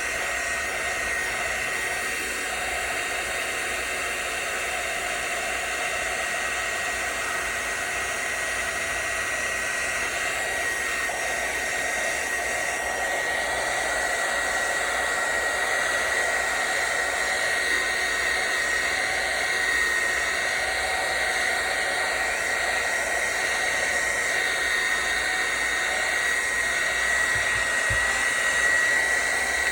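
Hot-air blower running steadily, an even rush of air with a thin high whistle held throughout, heating a phone's back glass to soften its adhesive.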